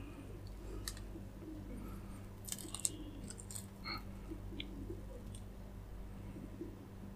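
Close-up chewing and biting of a fried chicken leg: wet mouth sounds with scattered crisp clicks and crunches, the loudest about three seconds in. A low steady hum runs underneath.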